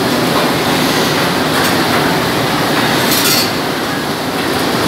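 Steady mechanical running of a poultry plant's overhead shackle conveyor line, with a few sharp metallic clinks of the steel shackles, the loudest about three seconds in.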